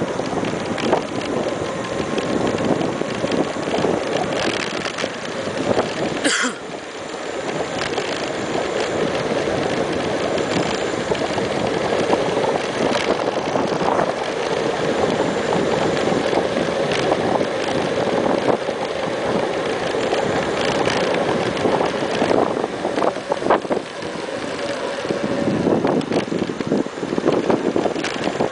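Wind noise rushing over the microphone of an electric bike riding at speed, with a steady whine from its e-BikeKit 9C rear hub motor. A brief sharp chirp comes about six seconds in.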